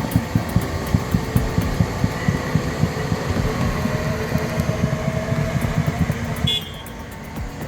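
Heavy Caterpillar excavator's diesel engine running hard with a rapid low throb as the stuck machine is pulled out of mud. The sound drops away about six and a half seconds in, then picks up again.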